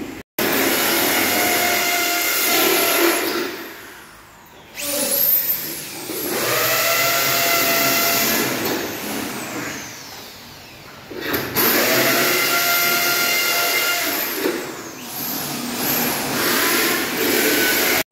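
Handheld power drill boring into a wall, run in three long bursts with short pauses between, its motor giving a steady whine that spins up at the start of each run.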